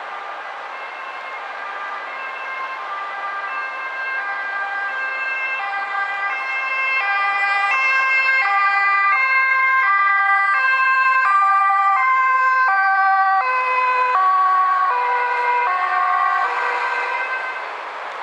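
Dutch ambulance's two-tone siren alternating between a high and a low note on an urgent run. It grows louder as it approaches, then drops in pitch as it passes and fades away.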